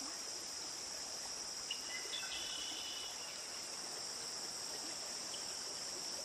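Steady high-pitched drone of an insect chorus, with a few short bird chirps about two seconds in.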